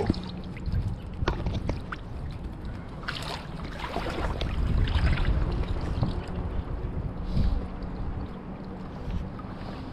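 Shallow creek water running over stones, with wind rumbling on the microphone, louder about halfway through, and a few short splashes from a landing net moved in the water.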